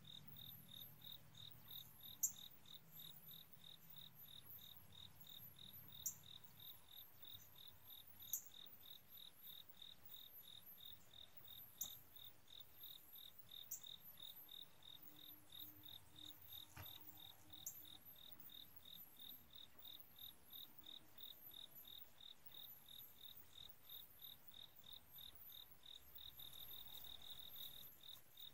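Faint insects chirping: a steady, evenly pulsed chirp with a faster, higher-pitched chirping above it, growing a little louder near the end. A few sharp clicks stand out now and then.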